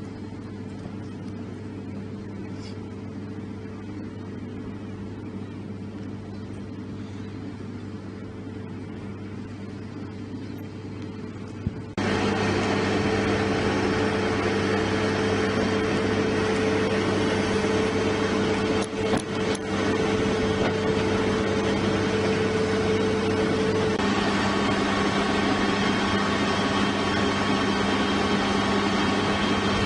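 Steady engine hum with a few fixed droning tones. About twelve seconds in it cuts abruptly to a much louder, noisier engine sound, which shifts again near the end.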